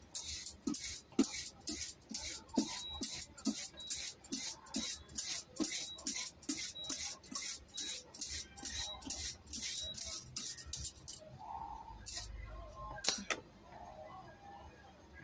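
Hand vegetable peeler scraping the skin off a daikon radish in quick even strokes, about three a second, which stop near the end. One sharp knock follows.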